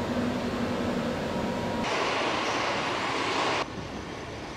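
Truck assembly-plant machinery noise: a steady hum, then a louder hiss for about two seconds that cuts off abruptly about three and a half seconds in.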